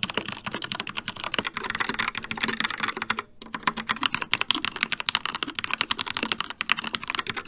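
Fast typing on a mechanical keyboard: a dense, rapid run of key clicks, broken by a brief pause about three seconds in.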